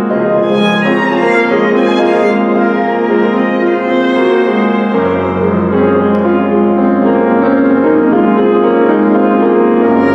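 Live neoclassical duet of acoustic piano and violin, playing held melodic notes together. A low note comes in about halfway through.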